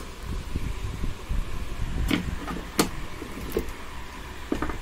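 A few sharp clicks and light knocks from the satellite receiver's sheet-metal case being handled and opened, over a steady low rumble.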